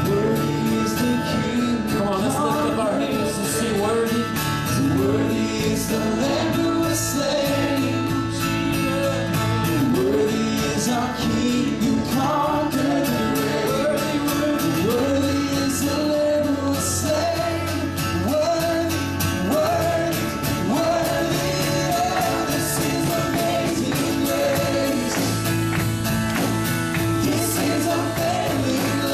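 Live praise-and-worship music: a sung melody over a steady guitar-led band accompaniment.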